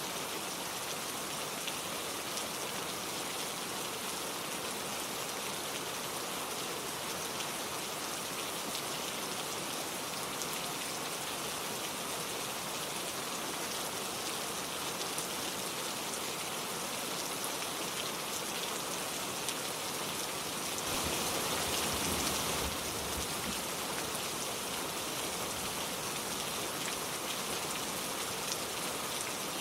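Gentle steady rain falling, with scattered light drop ticks and no thunder. It briefly swells louder for a second or two about two-thirds of the way through.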